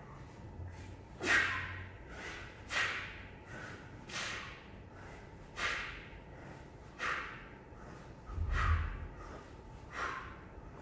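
Sharp, hissing exhalations from a person doing kettlebell swings. There are seven, evenly spaced about a second and a half apart, one with each swing.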